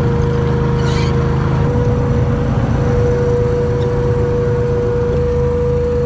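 Christy 9205 FC hovercraft's engines and propeller running under way, heard from inside the cabin as a loud, steady drone. Its pitch steps up slightly a little under two seconds in.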